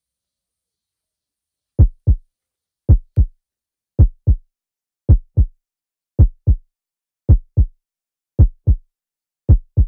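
Heartbeat sound effect: slow, low double thumps (lub-dub) about once a second, eight beats in a row, starting about two seconds in.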